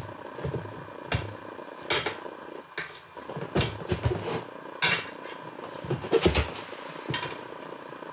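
Tyre levers clinking and knocking against a motorcycle's spoked wheel rim as a new rear tyre is levered on by hand: a series of sharp metal clacks at irregular intervals.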